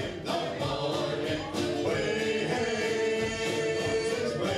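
Live band playing: mandolin, electric guitars and drum under voices singing together, with a steady beat; the singers hold one long note through the second half.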